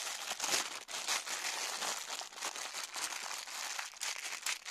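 A thin clear plastic coin bag crinkling continuously as hands squeeze and work it open.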